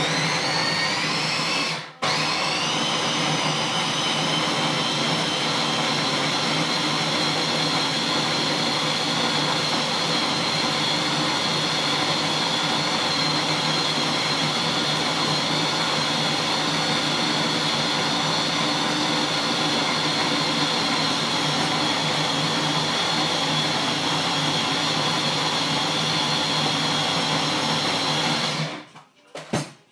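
Small electric food processor running, chopping paprika, onion, garlic and stem ginger into a purée, a loud racket. Its motor spins up with a rising whine, stops for a moment about two seconds in, then runs at a steady pitch until it cuts off near the end.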